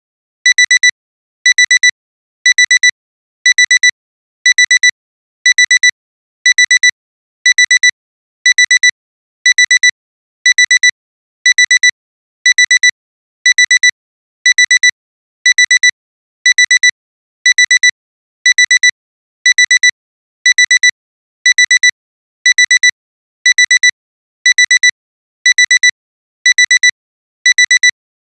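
Alarm clock alarm sounding as the 60-second timer runs out: loud, high-pitched electronic beeping in short quick groups, repeating steadily about once a second.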